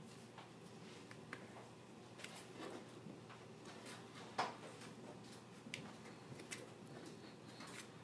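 Faint rustling and light taps of fingers pressing and smoothing a mesh stencil flat, with one sharper click about four and a half seconds in.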